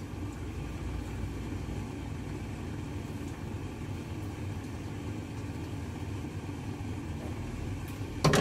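Steady low rumbling kitchen noise while boiled water is drained off a pot of pork, ending with one sharp knock as the pot goes back onto the stove.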